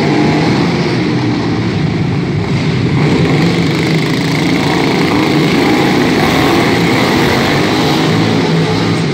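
A pack of racing riding lawn mowers, their small engines running hard together in a loud, steady drone.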